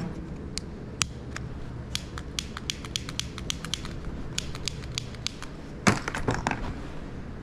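A lighter's igniter clicked over and over without catching: sharp, uneven clicks, a couple each second, as it fails to light. A louder short noise comes about six seconds in.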